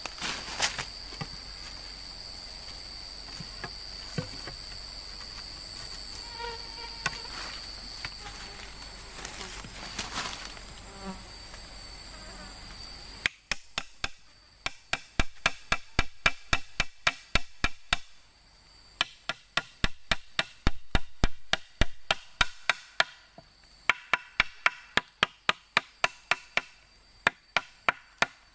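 Rainforest insects droning steadily on two high pitches for the first half. After a cut, rapid sharp blows on wood come in runs of several seconds, about three a second, as wood is worked for a shelter.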